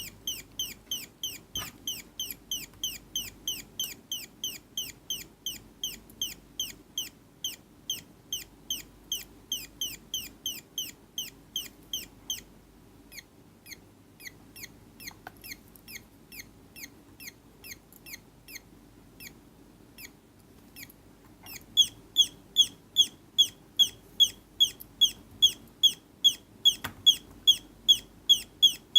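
Electronic 'parrot' sound-effect circuit putting out a rapid run of short, falling, bird-like chirps, about three a second. The chirps drop much quieter from about 12 seconds in and come back louder near the 22-second mark.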